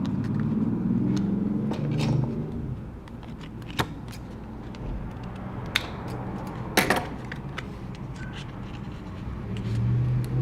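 A few sharp clicks and taps, the loudest a double click about two-thirds of the way through, from handling the parts of an opened laptop, over a steady low rumble.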